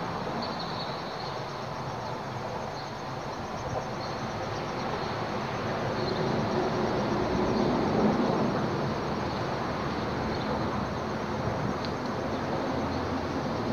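Steady rumble of highway traffic crossing the bridge overhead, swelling about halfway through.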